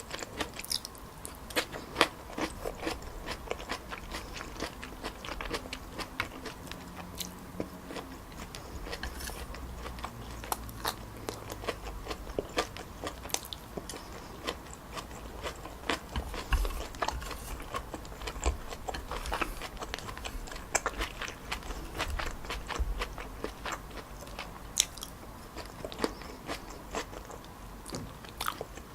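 Close-miked eating sounds: chewing on chewy wide glass noodles stir-fried with pork and vegetables, with many irregular wet mouth clicks and smacks.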